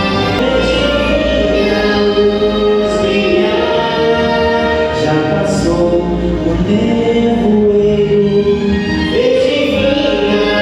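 A choir singing a song over instrumental accompaniment with sustained bass notes.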